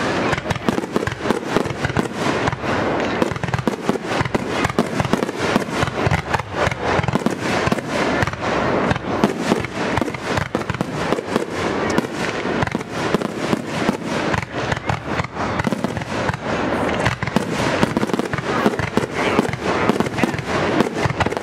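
Fireworks grand finale: a rapid, continuous barrage of aerial shells bursting, many bangs a second with no pause.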